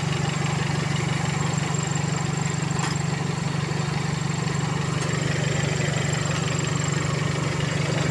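Toyota Corolla's 2E 1.3-litre four-cylinder carbureted engine idling steadily.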